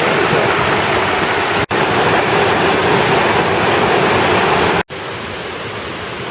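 Water pouring down a waterfall: a loud, steady rush of noise. It cuts out for an instant twice, and after the second break it is quieter.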